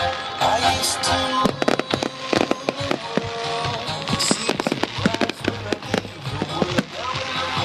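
Fireworks going off in rapid succession, many sharp bangs and crackles, over music.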